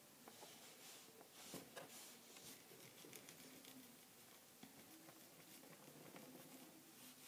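Near silence with faint light taps and rubbing: fingers handling small pieces of polymer clay on a wooden tabletop.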